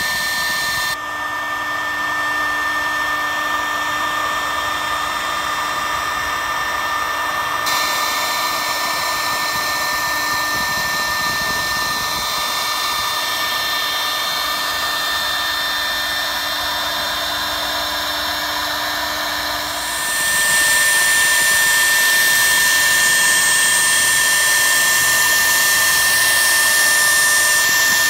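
Techno HD-II tabletop CNC router's spindle running at about 18,000 RPM with a steady high whine while a 3/32" two-flute spiral upcut bit mills clear plastic at 60 inches per minute. The sound gets louder about two-thirds of the way through.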